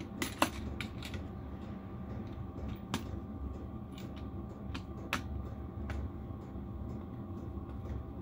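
Plastic junction-box enclosure being handled and its lid fitted back on: scattered sharp clicks and light taps of plastic and metal fittings, several in the first second and a few more spread through, over a steady low hum.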